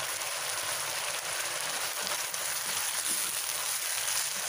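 Shredded chicken in a thin chili and tomato sauce sizzling steadily in a non-stick wok.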